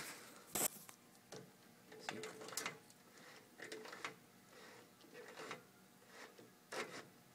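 Faint handling noise: scattered light clicks and rubbing sounds over a faint steady hum.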